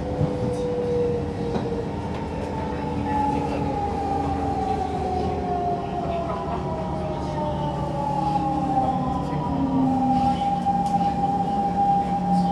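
Siemens C651 electric train braking into a station: the traction motors' electric whine falls steadily in pitch, several tones gliding down together, over the rumble of the wheels on the track. The falling whine is the sound of regenerative braking.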